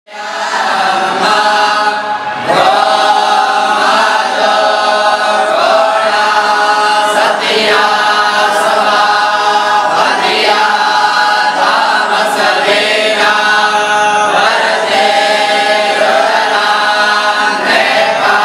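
A group of boys chanting a hymn together in unison, without instruments.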